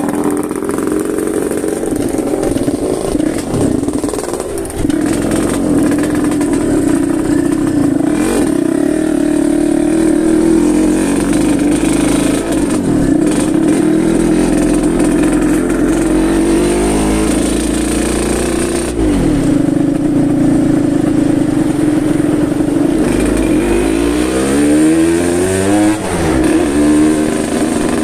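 Yamaha RX-King two-stroke single-cylinder motorcycle engine running with a deep 'ngorok' (snoring) exhaust note, the throttle blipped now and then, with a quick run of revs rising and falling near the end.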